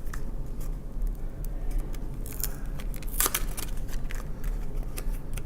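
Handling the cardboard box of a 120 roll film: scattered small clicks and crackles of the packaging, with louder rustles about two and three seconds in.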